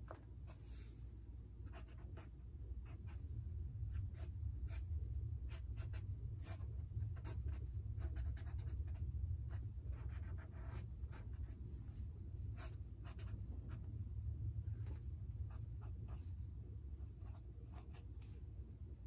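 Ink pen scratching across sketchbook paper in quick, irregular hatching strokes, over a low steady rumble.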